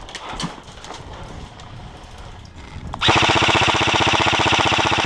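Airsoft rifle firing a full-auto burst: a loud, rapid, even rattle that starts about three seconds in, lasts about two seconds and stops suddenly.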